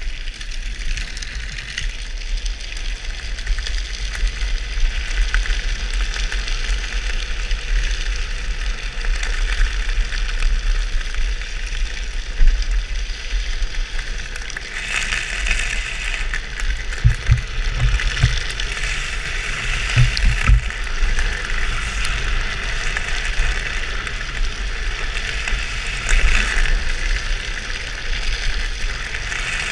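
Hard PVC sleeves on a drift trike's rear wheels hissing as they slide over the asphalt on a fast downhill run, with wind rumbling on the helmet-mounted microphone. The hiss swells in several stretches from about halfway through, and a few low buffets come in the middle.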